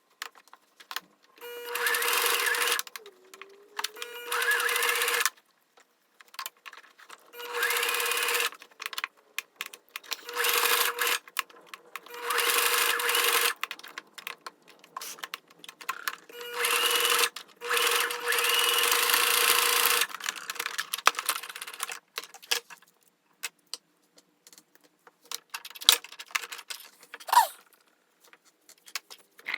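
Sewing machine running in repeated bursts of one to three seconds, stopping and starting again, as hair tracks are sewn. In the last several seconds the motor stops and only scattered clicks and handling sounds remain.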